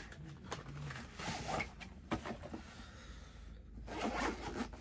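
Cardboard packaging scraping and rustling as the box is opened, then the zipper of a black semi-rigid camera carrying case being pulled open near the end.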